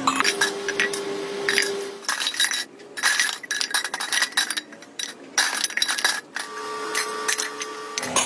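Empty steel oil-filter canisters clinking and knocking against each other as they are handled and wiped with cloths: an irregular string of sharp metallic clinks.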